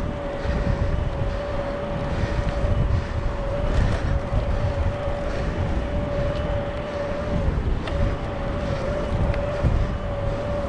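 An e-bike's electric motor whining at one steady pitch, breaking off for a moment about three-quarters of the way through, under wind buffeting the microphone.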